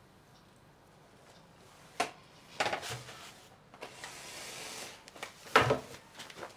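Knocks and scraping from a wooden kitchen chair as someone gets up from the table and walks off. A sharp knock comes about two seconds in, then more knocks and a rushing scrape, and the loudest thud comes near the end.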